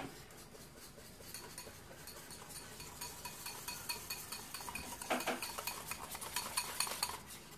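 Metal wire whisk beating flour and water in a ceramic bowl, clinking rapidly against the bowl's sides. The clinks come quicker and louder in the second half as the slurry is whisked smooth of lumps.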